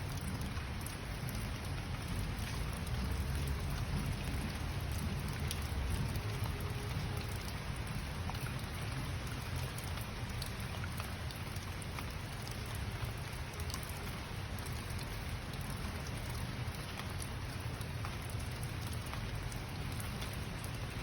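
Steady rainfall, with scattered drops ticking on a surface and a low rumble beneath.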